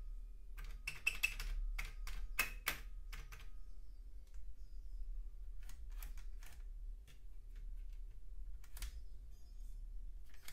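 Front-panel push buttons and controls of a Technics SU-Z15 integrated amplifier clicking as they are pressed. There is a quick run of clicks in the first few seconds, then a few scattered ones, over a steady low hum.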